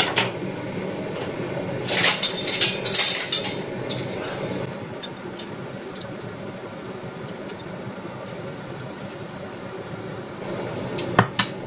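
Handheld lemon squeezer clicking and clinking as a lemon is pressed over a plastic food processor bowl, with the clearest cluster of clicks a couple of seconds in. A steady hum runs underneath.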